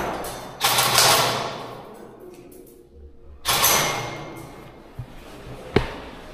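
Bursts of airsoft gunfire, two in all, each starting sharply and fading over a second or so, then two sharp single cracks near the end.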